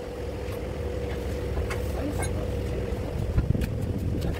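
A machine running steadily with a low hum and a thin steady tone, with a few faint light clicks and taps over it.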